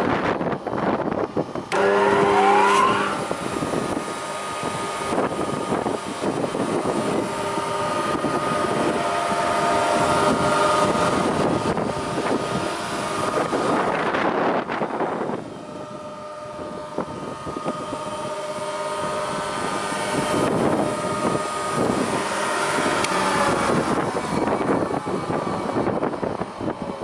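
Spindle moulder started about two seconds in, its motor and cutter spindle spinning up in a rising whine, then running with a steady whine; a rougher, noisier stretch comes just past the middle, and the pitch sinks slightly near the end.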